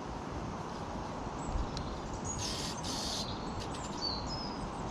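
Birds calling over steady outdoor background noise: two harsh, scratchy calls just past the middle, and a few short, high chirps.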